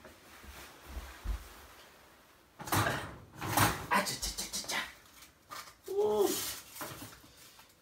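Metal oven rack and pizza clattering with a run of sharp clicks and knocks as a hot pizza is pulled out by hand with a cloth. Then a man's short pained yelps, 'ah-cha-cha-cha', at the heat on his fingers.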